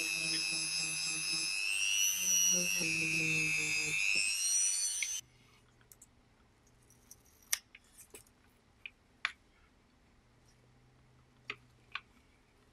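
Small handheld rotary tool with a felt polishing wheel running at high speed: a steady whine that shifts in pitch as it is pressed against the clear plastic cassette-door window. It cuts off abruptly about five seconds in. Then come faint scattered clicks and crackles of fingers handling a thin sheet of plastic film on the metal panel.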